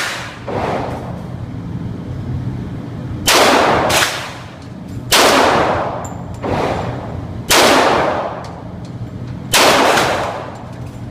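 Les Baer Hemi 1911 pistol fired four times, roughly two seconds apart, each loud shot followed about half a second later by a fainter crack or ring.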